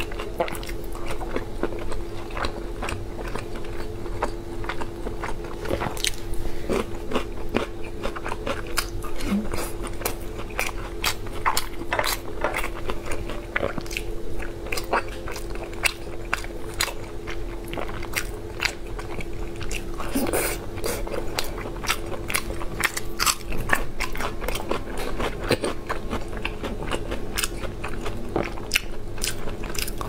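Close-miked chewing and biting of red-braised pork belly: a steady run of wet mouth clicks and smacks at an irregular pace. A steady low hum runs underneath.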